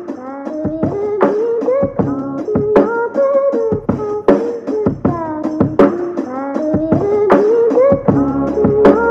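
Background music: a melodic line that bends and shifts in pitch over sharp percussion hits.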